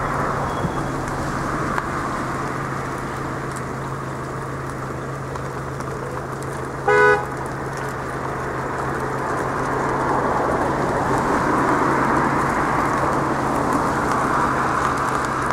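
Steady car engine and road noise, with one short car horn toot about seven seconds in.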